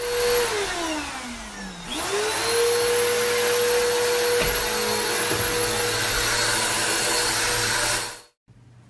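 Vacuum cleaner running: its motor whine sinks in pitch about a second in, climbs back up just before two seconds, then runs steadily until it cuts off abruptly near the end.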